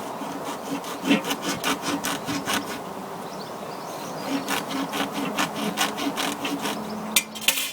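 Hand saw blade rasping back and forth through the hard leather-covered cork of a hurling ball (sliotar), in quick strokes with a short pause in the middle. The ball is tough to cut.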